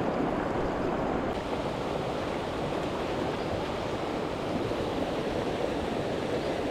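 Mountain-stream current rushing steadily over rocks, the river running high.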